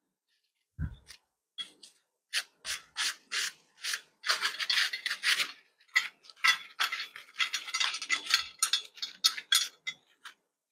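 Plastic cellophane wrapping being pulled and stripped off a motorcycle crash bar: a run of short crinkling, rubbing scrapes, about three to four a second, after a soft low thump about a second in.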